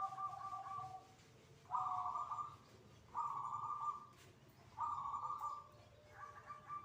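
Zebra dove (perkutut) cooing: a series of short, slightly trilled coo notes repeated about every second and a half.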